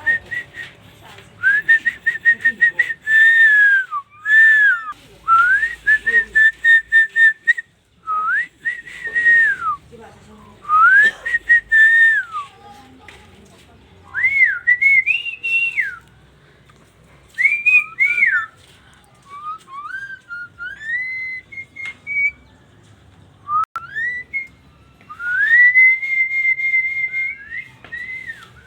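Pet jalak (starling) whistling a run of clear phrases, mixing rising and falling glides with held notes, and stuttering rapidly in places, with short pauses between phrases.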